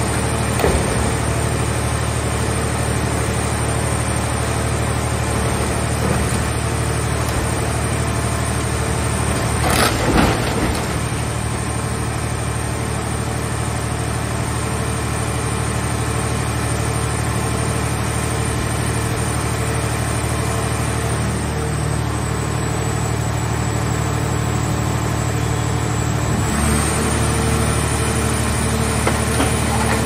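Scrap-car baler's hydraulic power unit running steadily with a low, multi-toned hum while the press lid closes down on a car body. About ten seconds in there is a brief loud crunch of the car shell being crushed. Near the end the machine's note shifts as the press moves on.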